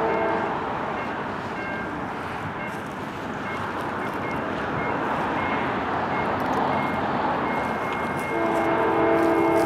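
Diesel locomotive horn of an approaching Norfolk Southern freight train: a held horn chord cuts off about half a second in, leaving the steady rumble of the oncoming train, and the horn sounds again about a second before the end.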